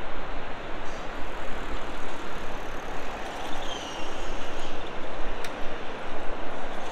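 Road traffic on a wide multi-lane city street: a steady wash of tyre and engine noise from passing cars. A faint high squeal sounds briefly about three seconds in.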